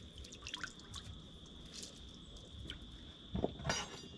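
Lemonade dripping and splashing lightly, with a few small clicks. A steady high-pitched insect drone runs underneath.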